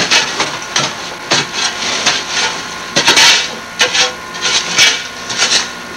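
A series of rough scraping, rasping strokes, about one and a half a second and a little uneven.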